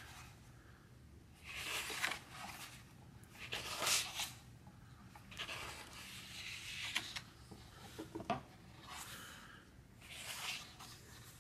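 Pages of a large, heavy book being turned one after another: several soft paper swishes, each about a second long, with a few light taps in between.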